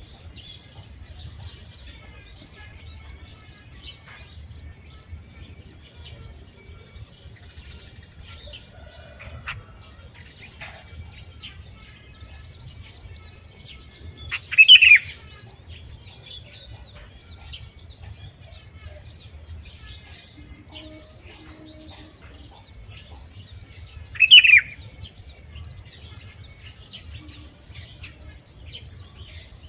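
Sooty-headed bulbul (kutilang) lure calls: two loud, short calls, about halfway through and again some ten seconds later. Under them run a steady high insect drone and faint chirping of other small birds.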